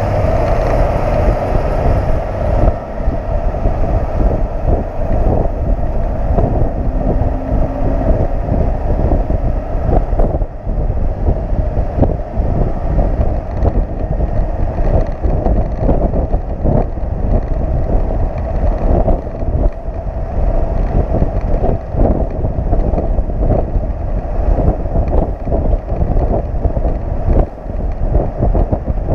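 Wind rushing and buffeting over a microphone on a motorcycle that is riding strapped to the deck of a moving flatbed tow truck, over the truck's steady engine and road noise.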